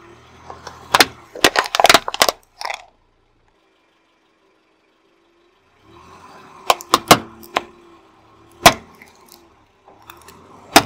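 Hard plastic cracking and snapping under a slowly rolling car tyre, first as it crushes ladybug-shaped plastic toys in a quick run of sharp cracks, then, after a silent gap, as it flattens plastic LED tea-light candles with several more separate cracks. A faint low engine hum lies underneath.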